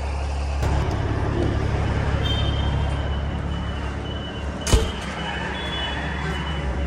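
Steady low hum of idling diesel trucks and warehouse background noise. A thin high steady tone comes in about a third of the way through, and there is one sharp knock a little past the middle.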